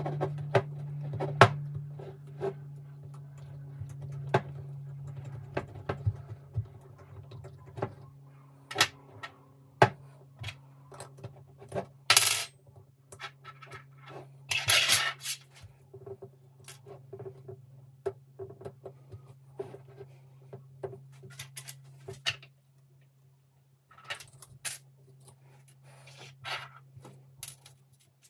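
Irregular metallic clinks and taps of spanners and small nuts, washers and fittings being worked off an aluminium individual throttle body and set down on a workbench, over a steady low hum.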